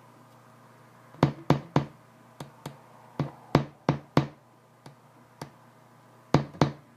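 Music Man Classic StingRay 5 five-string electric bass, its strings plucked in short, quickly damped notes, about a dozen in uneven bunches, over a steady low hum. Its humbucking pickup's rear coil is nearly dead, so the bass sounds as if it is running on a single coil.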